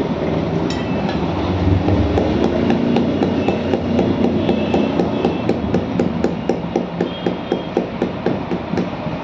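Hand-held metal file scraping the rubber of an auto-rickshaw inner tube to roughen it around the puncture before patching, in quick even strokes about three to four a second. A steady low hum runs underneath.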